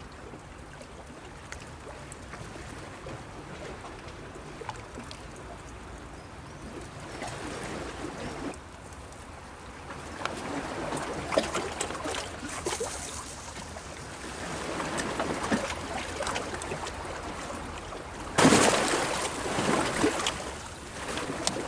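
Small sea waves washing against rocks, swelling and fading every few seconds, with a sudden louder rush about eighteen seconds in.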